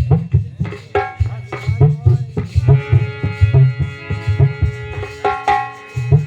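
Instrumental kirtan accompaniment: hand drums in a brisk rhythm, joined about two and a half seconds in by a held chord that stops near the end.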